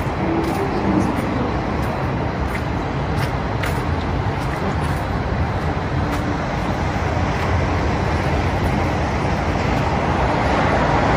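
Steady city background noise: a constant low rumble and hiss of traffic, rising slightly near the end.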